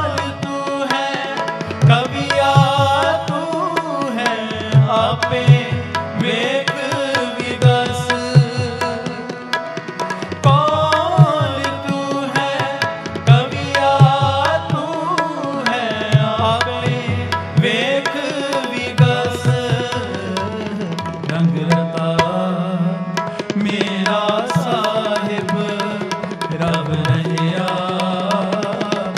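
Sikh kirtan music: tabla playing a steady rhythm under a melody line whose notes glide up and down.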